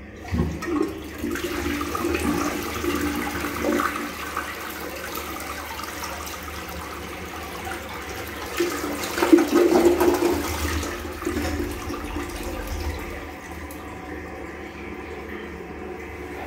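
ALEX siphon toilet flushing: water rushes into the bowl and swirls down the drain, with a second, louder surge about halfway through, then eases to a quieter steady flow near the end.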